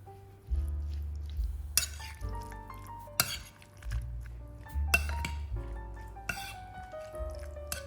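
Clinks of kitchenware, about five sharp strikes roughly a second and a half apart, over background music of held keyboard notes and a low bass line.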